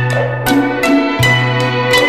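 Instrumental background music of plucked strings, with notes struck about twice a second over a sustained low bass line.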